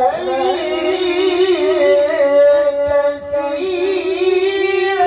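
A man reciting the Qur'an in the melodic tilawah style, amplified through a microphone and PA. He sings long held notes with wavering ornaments, and breaks briefly about three seconds in.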